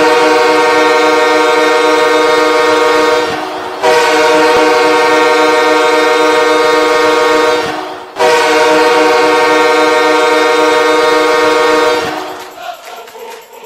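Arena goal horn blowing three long blasts, each about four seconds, on one steady chord, then dying away about twelve seconds in.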